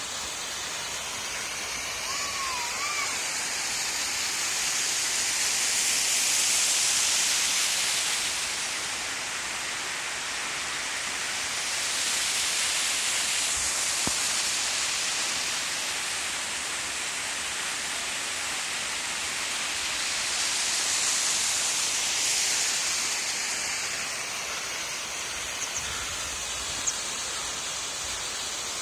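Waterfall pouring: a steady hiss of falling water that swells louder and eases off again three times. A brief faint wavering whistle comes about two seconds in.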